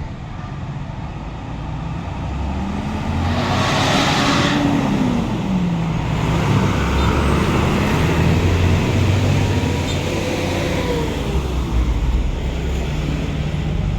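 A large bus passing close by, its engine running loud with its pitch rising and falling as it goes by, and a short loud hiss about four seconds in.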